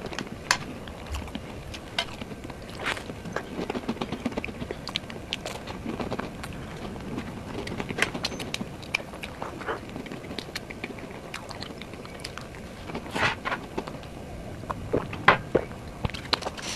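Close-miked mouth sounds of a person eating soft mousse cake: chewing with scattered sharp lip smacks and clicks.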